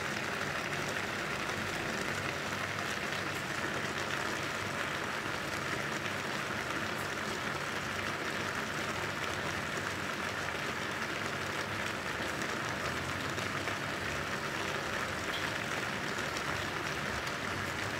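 Fish and vegetable tajine simmering in an uncovered frying pan: a steady sizzle that does not change.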